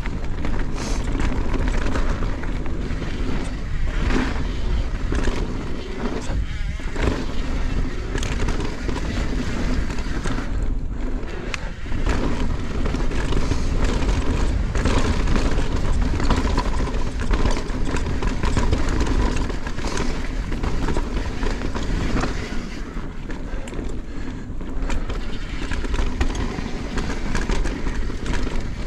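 Yeti SB160 full-suspension mountain bike rolling fast down a dirt singletrack: tyres crunching over dirt and stones, the bike rattling and knocking over bumps, and wind rumbling on the helmet camera's microphone.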